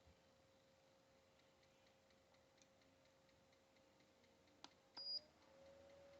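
Faint steady hum of a portable rechargeable fan with light ticking. About five seconds in comes a click, then a short high beep from a button press, and the hum rises slightly in pitch and gets louder as the fan's setting changes.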